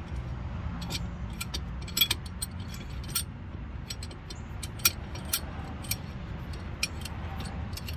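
Irregular sharp metallic clicks and clinks of hand tools on car brake parts, over a steady low rumble.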